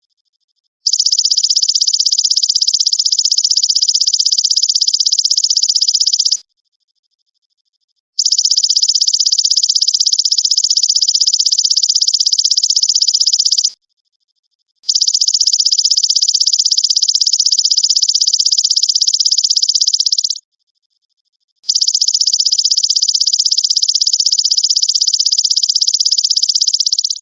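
Belalang emas (golden grasshopper) stridulating: four long, high-pitched buzzing trills of rapid pulses, each about five to six seconds long, separated by silences of about a second.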